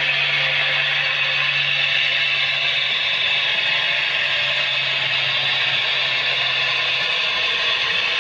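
Steady running noise of an HO-scale model train hauling a long coal train, with a low hum that stops about seven seconds in.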